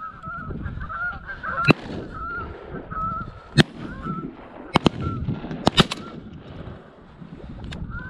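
Canada geese honking, broken by loud, sharp shotgun shots: one under two seconds in, another a couple of seconds later, then two quick pairs about a second apart.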